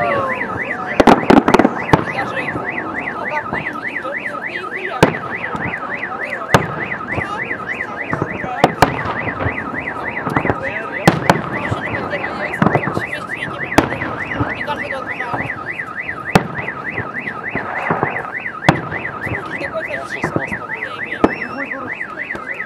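Aerial firework shells bursting every second or two in sharp bangs. Under them a car alarm wails, warbling rapidly up and down without a break.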